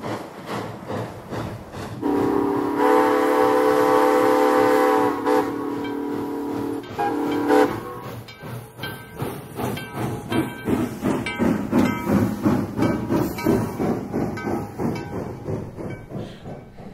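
Nevada Northern 81, a 2-8-0 steam locomotive, sounds its Southern Pacific six-chime whistle in one long chord blast of about five seconds, then works away with strong, rhythmic exhaust chuffs as it pulls out.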